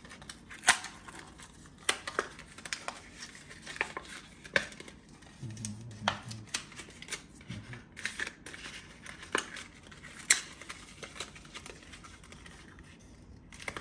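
Packaging of a Quad Lock phone ring being handled and opened: irregular sharp clicks and crinkles of plastic and cardboard, with some tearing.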